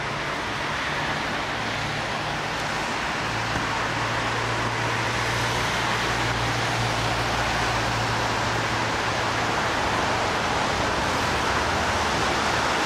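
Steady hiss of rain and city road traffic, with a low engine hum that swells for several seconds in the middle.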